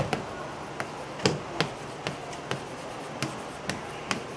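Writing on a classroom board: a string of short, irregular taps and clicks, a few of them sharper than the rest.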